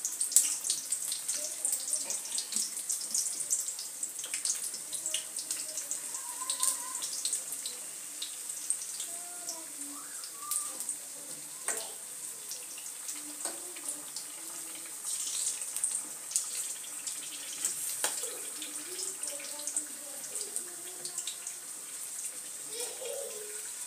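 Smokies sizzling in hot cooking oil in a frying pan: a steady high sizzle with frequent sharp pops and crackles, and now and then a light knock of the fork against the pan as the sausages are turned.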